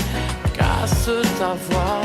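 Pop music with a steady beat and bass under a wavering melody line.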